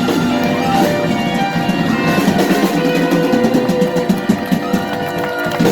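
Live band music: guitar playing over drums, with a final loud hit near the end.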